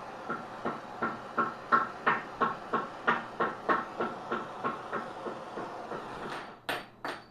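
Graphite wax bar rubbed back and forth on warmed cast-iron table saw tilt trunnions, about three strokes a second, with a couple of sharper knocks near the end.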